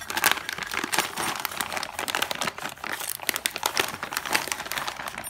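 Clear plastic parts bags crinkling continuously as hands rummage through them.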